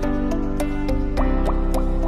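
Background music: pitched notes with a steady plucked rhythm and light high ticks, with no speech.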